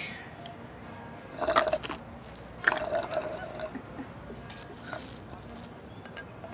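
A milkshake being slurped through a straw: a short pull about a second and a half in, then a longer one near three seconds, with soft background music.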